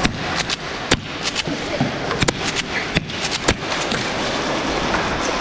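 Airsoft guns firing in an indoor arena: a string of sharp cracks at uneven intervals, the loudest about one, two and a quarter, three and three and a half seconds in, over a steady noisy background.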